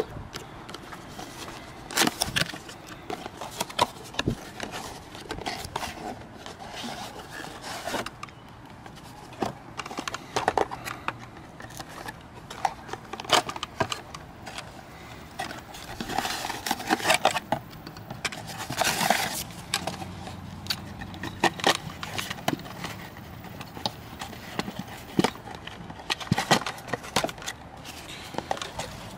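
A small cardboard gauge box being opened by hand: its flaps are bent back and the cardboard scrapes and clicks as a gauge is lifted out of the packaging, with short bursts of rustling. Near the end a folded paper instruction sheet rustles as it is handled.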